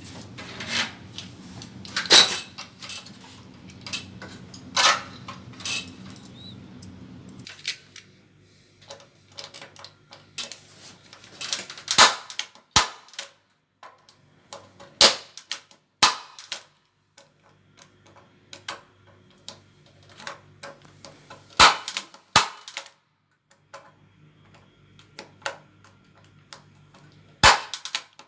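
Impact punch-down tool snapping as Cat 6 wires are seated into a patch panel's terminals: sharp loud clicks every few seconds, with softer clicks and handling of the wires between. A low steady hum stops about seven seconds in.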